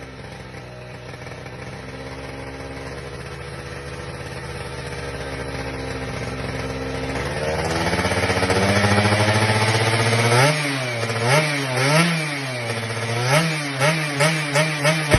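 Yamaha F1ZR's two-stroke single-cylinder engine idling steadily and slowly growing louder, then revved up about seven seconds in and blipped repeatedly, with quicker, sharper throttle blips near the end.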